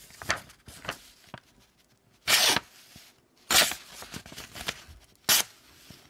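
The large blade of a Victorinox Evolution Grip S17 pocket knife slicing through a sheet of paper: three short, sharp cutting sounds, each about a second or more apart, starting a couple of seconds in, with faint paper rustles and clicks before them. The factory edge is sharp enough to cut paper cleanly.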